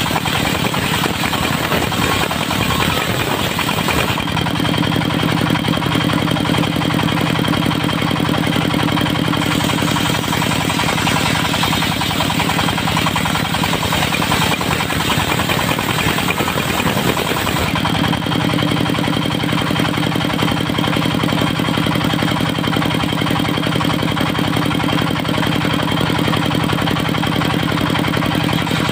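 Diesel engine driving a portable circular sawmill, running steadily. Its sound changes about four seconds in and again about eighteen seconds in.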